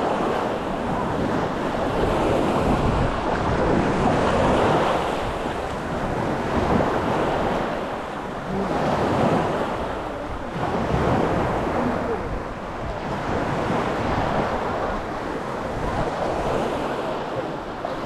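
Sea waves washing onto the beach, surging and easing every two seconds or so, with wind buffeting the microphone.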